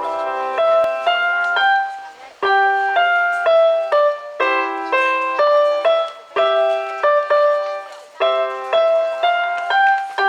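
Piano music: a simple melody played note by note in short phrases of about two seconds, with brief pauses between them.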